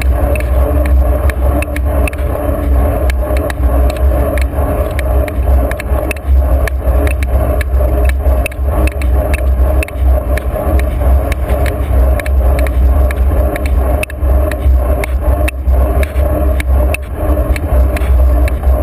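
A bicycle being ridden along a sealed road, heard from a camera mounted low on the bike: a heavy, uneven low rumble with steady road noise, and frequent small rattles and clicks from the bike.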